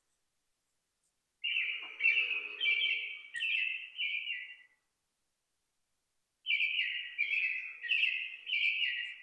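A bird calling in two series of short, harsh repeated notes, about six to a series, each note sliding slightly down, with a few seconds' pause between the series.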